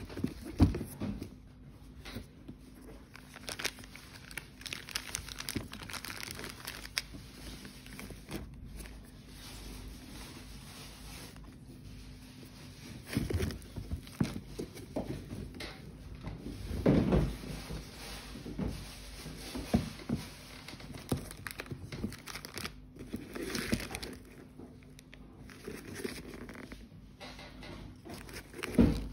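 Hands handling leather sneakers and their wrapping: irregular crinkling and rustling of paper and plastic, with scattered small clicks and rubs and a few louder spells of handling.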